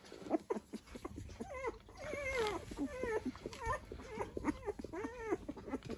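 Dalmatian puppies about two weeks old squeaking and whimpering while they nurse: many short, high calls that rise and fall, one after another.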